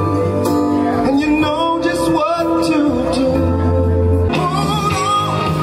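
Male singer performing live, singing into a handheld microphone over instrumental accompaniment.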